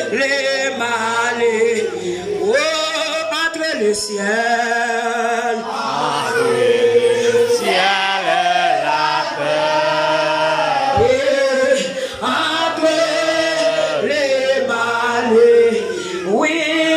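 A congregation singing a worship song together, led by a woman's voice amplified through a microphone. The singing is continuous, in a chant-like style.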